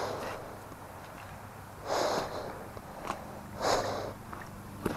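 A person breathing hard close to the microphone, three heavy breaths about two seconds apart, over a steady low hum. A sharp click comes near the end.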